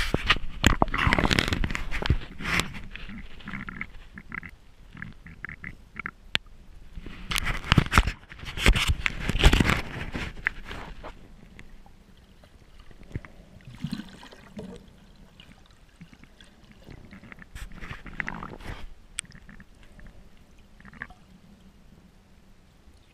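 Water splashing and sloshing around a camera held at the surface and dipped under, in two loud spells in the first few seconds and again about 7 to 10 seconds in. After that come quieter, muffled underwater sounds with a few soft swells.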